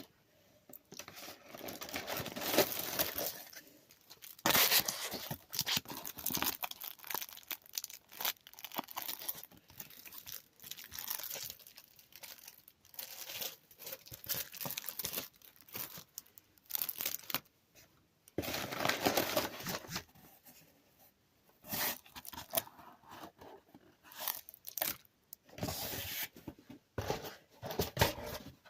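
Packaging being torn open and crinkled by hand: irregular ripping and rustling in bursts of a second or two, the longest near the start and about two-thirds of the way through, with lighter crinkling and handling noises between.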